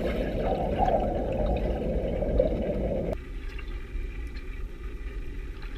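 Muffled underwater water noise from swimming, picked up by a GoPro's microphone inside its waterproof housing. It drops to a quieter, thinner hiss about three seconds in.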